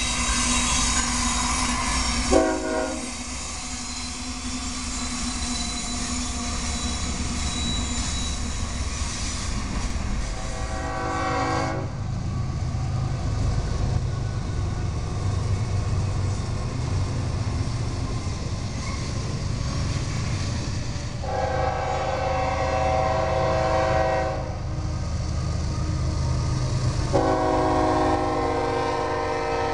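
GE ES44AC diesel locomotive sounding its multi-note air horn in four blasts: a short one about two seconds in, then longer ones near ten seconds, past twenty seconds and near the end. Underneath runs the steady low rumble of the locomotive and train, growing heavier after about twelve seconds.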